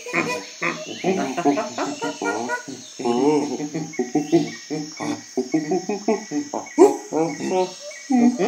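Crickets chirring steadily, under a person's voice making rapid, wordless vocal sounds.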